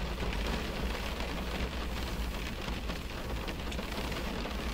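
Heavy rain falling on a car's roof and windows, heard from inside the cabin: a steady, dense patter with a low rumble underneath.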